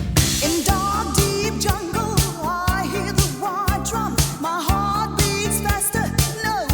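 Background music with a steady beat, a bass line and a bending lead melody.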